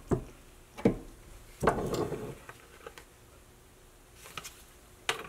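One-ton arbor press with a wad-cutter punch punching a hole through a thin plastic disc: four sharp clicks and knocks as the punch goes through and the disc meets the steel press table, the loudest about a second and a half in.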